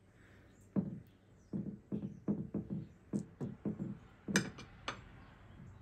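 Soft background music, with a single sharp clink about four and a half seconds in as a metal fork knocks against a glass baking dish of flour.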